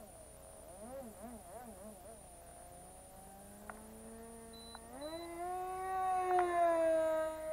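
MP-JET .061 model aircraft engine with an APC 6x3 propeller whining in flight. Its note drops sharply at the start and wavers up and down for a second or two. It stays low, then climbs back to a steady high whine about five seconds in.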